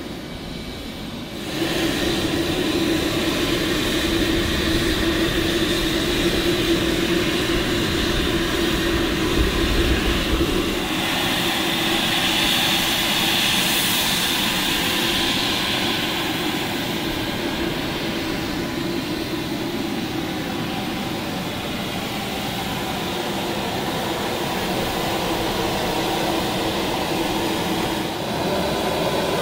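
Dassault Falcon 2000 business jet's engines running, a steady jet noise with a low hum that gets louder about a second and a half in.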